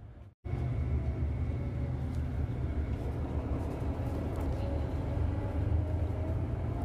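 Bus engine and road noise heard from inside the cabin: a steady low rumble that cuts in abruptly after a brief silence just under half a second in.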